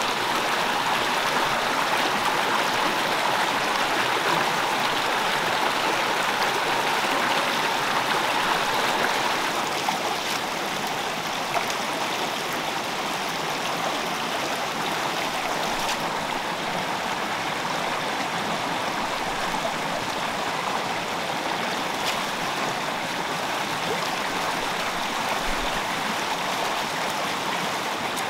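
Shallow rocky stream rushing and splashing over stones, a steady rush of water that drops a little in level about ten seconds in.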